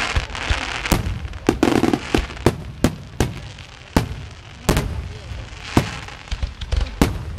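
Fireworks going off: a dozen or so sharp bangs at irregular intervals, roughly two a second, over a steady background noise with voices.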